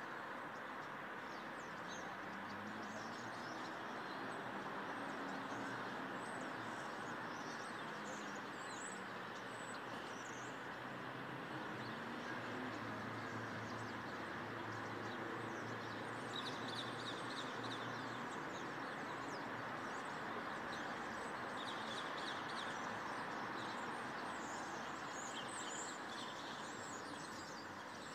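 Steady outdoor background noise with faint, scattered bird chirps and twitters above it, more of them in the second half.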